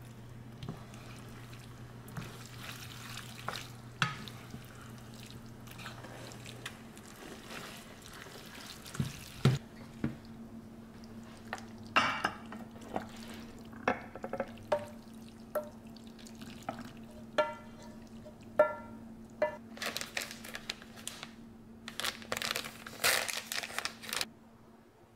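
A wooden spatula stirs saucy spaghetti in a frying pan with wet, sloppy sounds. About halfway through it starts knocking and scraping against the pan as the pasta is pushed out into a ceramic baking dish: many short taps, each ringing briefly, then denser scraping. A steady low hum runs underneath for the first few seconds.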